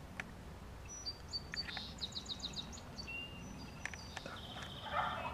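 Songbirds singing over a low steady outdoor background: a few high whistled notes and a quick run of about six repeated notes, then a buzzy trill about four seconds in. A brief louder noise comes near the end.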